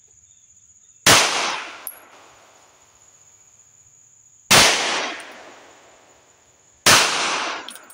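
Three 9mm pistol shots from an HK P2000, a few seconds apart, each followed by a fading echo. The last one sounded off to the shooter, who wonders whether it was a bad round of 124-grain ammo. A steady high insect drone runs underneath.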